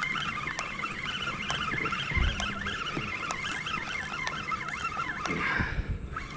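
Birds chirping and warbling over one another in a busy, unbroken chorus, with a dull low thump about two seconds in.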